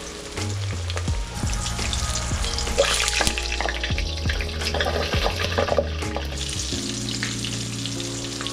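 Chip-crusted fish pieces deep-frying in hot oil in a steel pot: a steady crackling sizzle with scattered sharp pops. Background music with a low bass line plays underneath.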